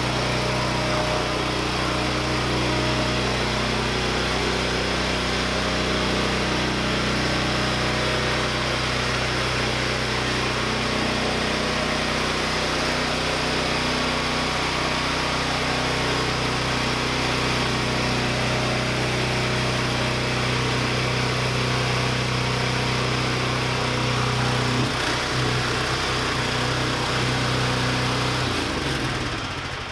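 MTD 990 lawn tractor's engine running steadily, then shut off near the end and winding down to a stop.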